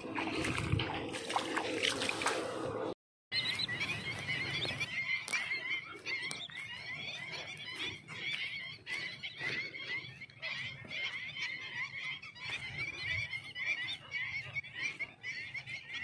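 Hands splashing and sloshing in shallow water for about three seconds while gathering clams. After an abrupt cut, a large flock of birds calls continuously, many overlapping short chirps and whistles, over a low rumble.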